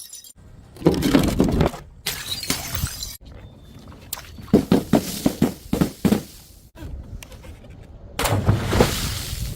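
A quick series of edited clips of glass bottles smashing and things being crushed: sharp cracks and crunching, with a dense run of cracks in the middle and a longer burst of shattering near the end, each clip cut off abruptly.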